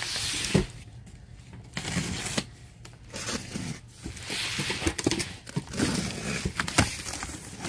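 A large cardboard shipping carton slid and handled on a table, then its packing tape slit with a box cutter, in several short spells of cardboard and tape noise.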